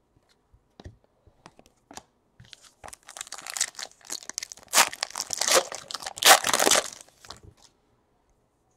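A foil wrapper of a Panini Elite Extra Edition baseball card pack being torn open and crinkled by hand. A few light ticks come first, then about four seconds of crackling tearing, loudest near the middle and again toward the end, before it stops.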